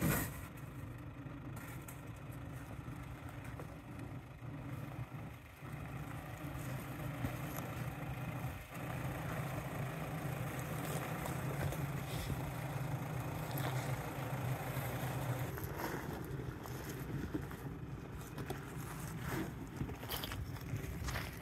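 Four-wheel-drive vehicle driving slowly off-road: steady engine drone, a little louder from about six seconds in, with scattered knocks and scrapes from the rough track.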